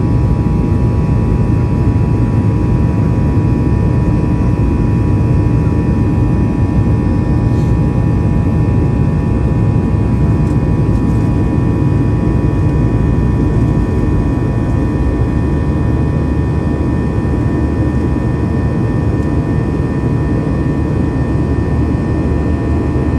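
Jet engine noise inside the cabin of a Boeing 737 MAX airliner, its CFM LEAP-1B turbofans running: a loud, steady rumble with several steady whining tones above it.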